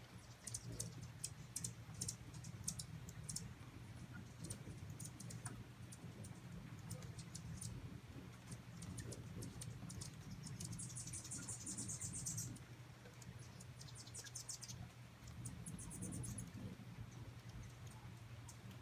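Hummingbirds making sharp, high chip calls in quick irregular series, with a rapid buzzy chatter for about two seconds near the middle and again briefly later, over a low steady background hum.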